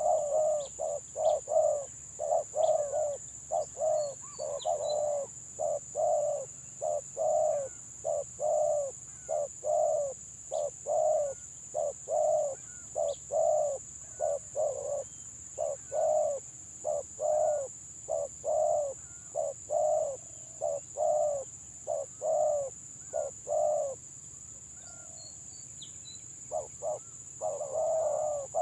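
Spotted doves (tekukur) cooing in a rapid, repeated run of coos in the broken, stuttering 'gagap' style. The cooing stops for a few seconds about 24 seconds in, then resumes near the end.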